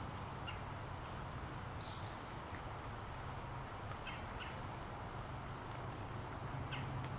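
Water shaken from wet tree leaves by the wind, falling like rain and pattering steadily on a fabric patio umbrella. A few short bird chirps come through, with one brief rising bird call about two seconds in.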